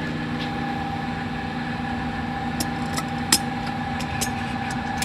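Steady hum of a running workshop machine, with a steady tone that joins it a moment in and a few small clicks and taps over it in the second half.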